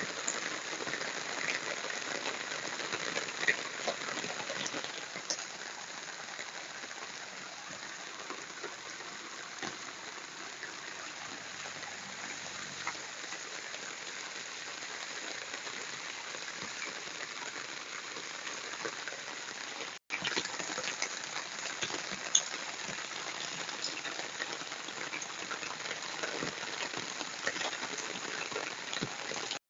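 Steady rain hiss with scattered drops ticking, and a very brief dropout about twenty seconds in.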